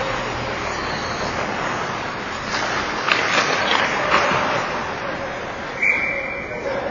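Ice hockey game sound in a rink: a steady wash of skates on the ice and distant voices, with several sharp clacks of sticks and puck in the middle, and a short steady high tone, like a whistle, near the end.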